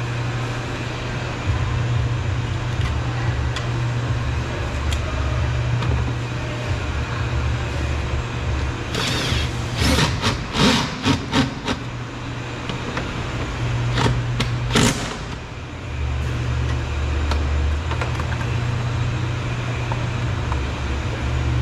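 Steady low mechanical hum with hand-tool clicks and knocks from work on a car door: a quick run of them about nine to eleven seconds in, and a few more around fourteen to fifteen seconds.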